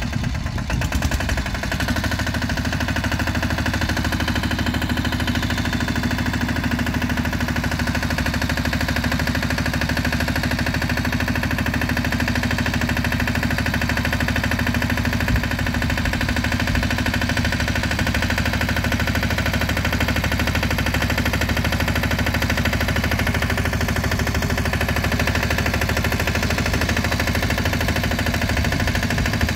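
Lombardini 3LD 510 diesel engine of a Bertolini 417S two-wheel tractor, speeding up from idle about two seconds in and then running steadily at working speed.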